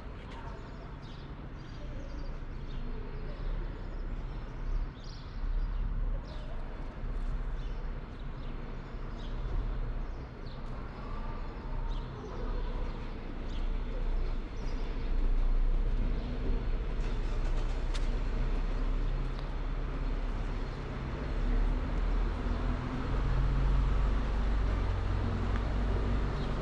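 Outdoor town-square ambience dominated by a low rumble, louder from about halfway through and again near the end, with a few faint ticks in the first seconds.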